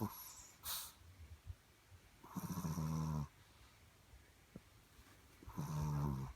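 A sleeping pet snoring: two long, low snores about three seconds apart, each lasting about a second, with a couple of brief short noises in the first second.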